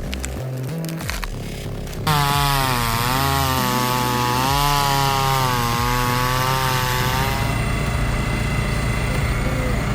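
A two-stroke chainsaw cutting wood. It is quieter for about the first two seconds, then comes in loud at about two seconds, its pitch dipping and rising as it works through the cut, and settles to a steadier note near the end.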